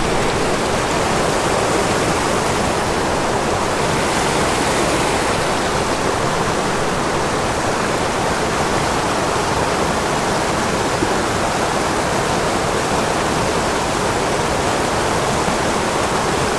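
Water of a steep, high-gradient mountain creek rushing steadily, like one constant waterfall, tumbling down through small pools.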